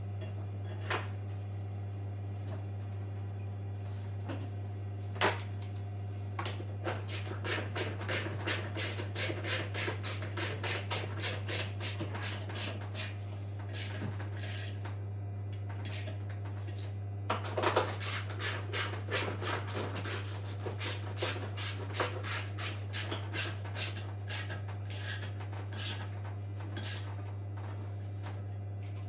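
Repeated hand rubbing or scraping strokes, about two to three a second, in two long runs separated by a short pause, over a steady low hum.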